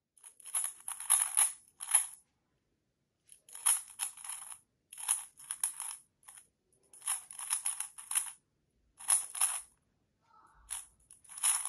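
A plastic 3x3 speed cube being turned fast in a speed solve, heard played back through a phone's speaker: clusters of quick clicking and clacking turns, broken by pauses of about half a second to a second.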